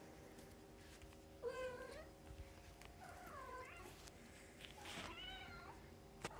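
Cat meowing: three short meows about a second and a half apart, the first the loudest, each bending up and down in pitch. A sharp click comes near the end.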